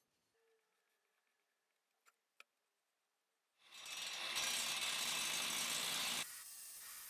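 Two short clicks, then an angle grinder's cut-off disc starts cutting through a square metal tube: a loud, steady, harsh hiss of abrasive on steel that drops to a lower level about a second before the end.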